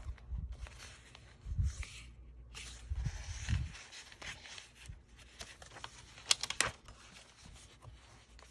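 Paper rustling and crinkling as the pages and paper tags of a handmade junk journal are handled and turned, with soft bumps and two sharp clicks a little past the middle.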